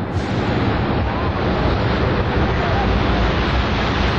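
A loud, dense rumbling roar that starts abruptly, recorded at street level as the World Trade Center's South Tower begins to fall. The narration calls it the boom of an explosion heard before the collapse.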